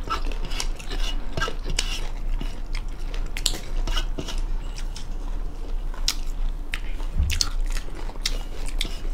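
Close-up chewing and mouth sounds of people eating rice and chicken by hand, with frequent short, wet clicks.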